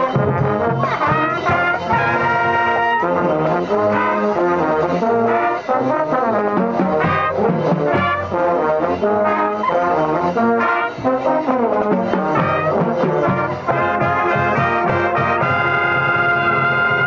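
A marching band's brass section, trumpets and mellophones, playing loudly together, with chords held for about a second around two seconds in and again near the end.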